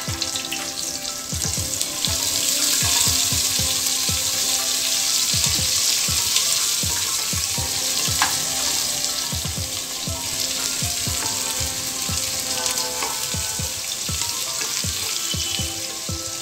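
Onions and whole spices sizzling in hot mustard oil in a pressure cooker, the sizzle swelling about two seconds in. A wooden spatula stirring them knocks and scrapes against the pot again and again.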